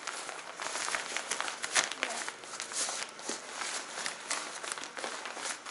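Rustling and crinkling of a sleeping pad's fabric and its stuff sack as the pad, still holding some air, is rolled and pushed into the bag, with quick scuffs and crackles throughout.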